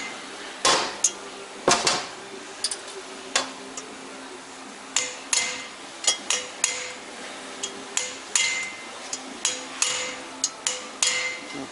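Hammer blows on the valve spring retainers of a VW AWP cylinder head, knocking the springs free without a spring compressor. It is a string of sharp metal strikes, irregular and about two a second, many leaving a short metallic ring.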